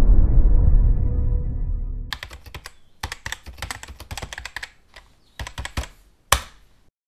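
A low hit from the logo music dies away over the first two seconds, then a keyboard-typing sound effect: rapid, irregular key clicks that stop just before the end, with one louder click near the end.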